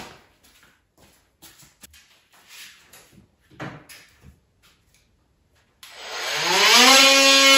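Faint scattered knocks and clacks of wooden trim being handled during wall demolition, then guitar music fades in about six seconds in, sliding up in pitch and becoming the loudest sound.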